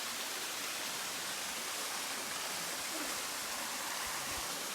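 Steady rushing of a waterfall pouring into a rock pool: an even, unbroken hiss of falling water.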